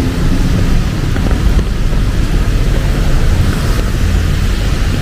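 Road traffic passing on a wet city street in the rain: a steady low rumble of engines under an even hiss of rain and wet tyres.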